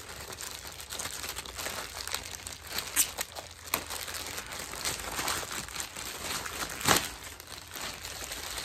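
A plastic poly mailer bag crinkling and rustling as it is torn open by hand, with a few sharp cracks of the plastic, the loudest about seven seconds in.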